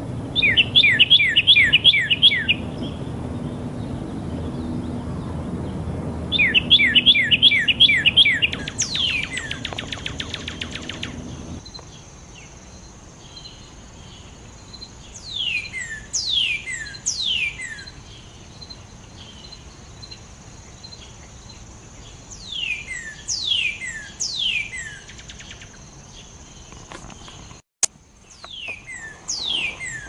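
Northern cardinal singing: two bursts of fast repeated notes and a rapid trill, then phrases of three or four clear whistles, each sliding steeply down. A low rumble underneath stops abruptly about twelve seconds in, and a steady thin high tone runs behind the later phrases.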